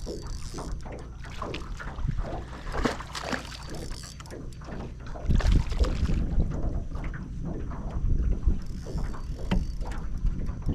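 Knocks, clicks and handling sounds in a fishing boat, over a low wind rumble on the microphone that swells about five seconds in.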